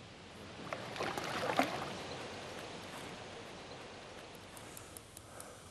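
Hooked fish splashing at the water surface while being played on a rod: a burst of splashes starting just under a second in, loudest around the middle of that burst, then easing to a soft wash of water.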